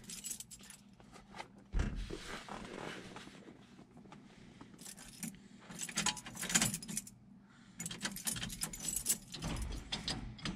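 Car keys jangling on a keyring in several short rattling bursts as the ignition key is worked, with nothing powering up: no juice reaches the new Holley EFI system.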